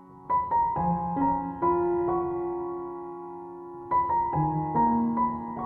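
Background piano music: a slow melody of held notes in two short phrases.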